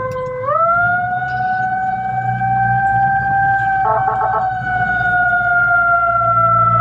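Fire truck siren wailing: one pitched tone that climbs about half a second in, then slowly sinks, with a short rapid warble about four seconds in. The truck's engine hums underneath, heard from inside the cab.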